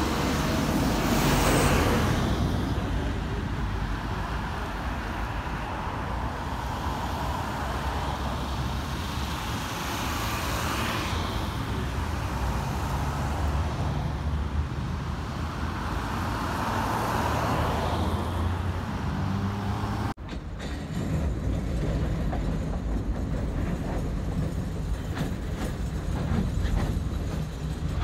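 Tram and road traffic noise: a 71-619KT tram running along a bridge, with passing vehicles swelling up and fading away three times. About two-thirds of the way through the sound cuts abruptly to a steadier low rumble with light clicking as another 71-619KT tram approaches along the bridge track.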